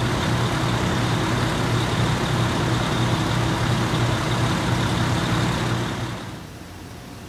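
Fire engine running with a steady low engine hum, which drops away about six seconds in.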